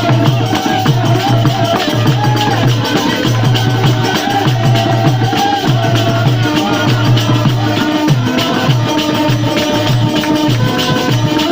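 Instrumental music: a low drum beat in a steady repeating rhythm, with a shaker-like rattle and sustained melody notes over it.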